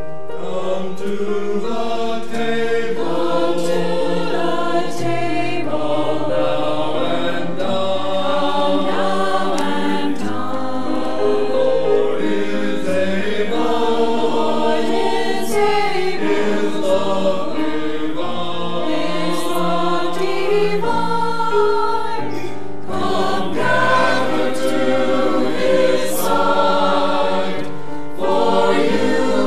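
Mixed church choir singing an anthem in parts, accompanied by piano.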